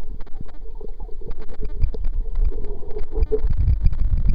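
Muffled underwater sound picked up by a Kodak PlaySport camcorder submerged in a freshwater lake: a low rumble of moving water with frequent sharp clicks and crackles, the rumble growing stronger in the last second or so.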